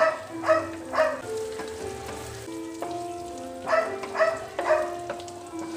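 Chicken and onion sizzling as they stir-fry in a pan, under background music of held melodic notes. Three sharp plucked notes half a second apart sound at the start and again about four seconds in.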